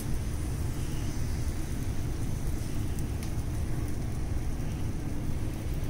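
Steady low rumble with a faint hiss over it, and a small click about three seconds in.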